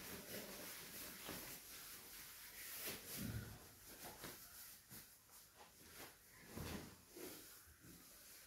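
Faint rustling and handling noise as a waistcoat is pulled on and adjusted, with two soft low thuds about three seconds in and near seven seconds in.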